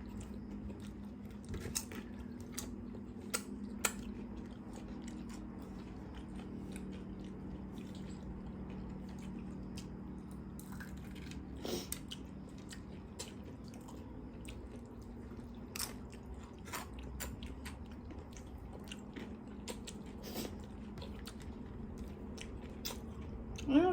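Close-up chewing and biting of food, with scattered crunches and wet mouth clicks over a faint steady low hum.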